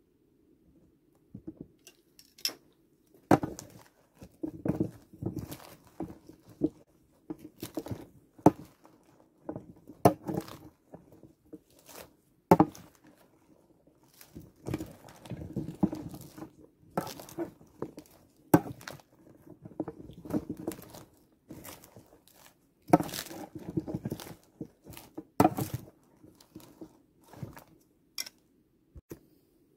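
Salad being tossed in a bowl: lettuce leaves rustling and crunching, with irregular sharp clicks and knocks of the utensils against the bowl. A faint steady hum runs underneath.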